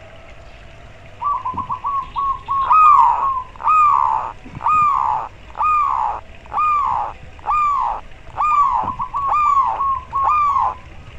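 Zebra dove (perkutut) singing close up: about a second in, a quick run of short cooing notes, then a series of longer rolling coos about one a second, each rising then falling in pitch, with more quick short notes between them near the end.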